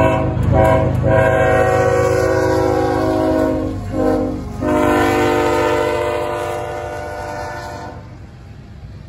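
Freight diesel locomotive's multi-chime air horn sounding close by in a series of blasts: two short ones, a long one, a short one and a final long blast that fades out near the end. Under it runs the rumble of the passing train.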